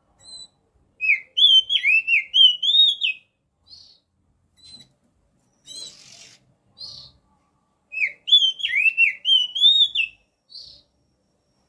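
Male oriental magpie-robin singing: two loud phrases of quick rising and falling whistled notes, about seven seconds apart, with short soft single notes in between.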